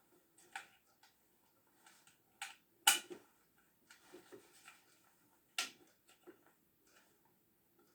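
Scattered light clicks and knocks of objects being handled, with a sharp click about three seconds in and another just past halfway; no motor running.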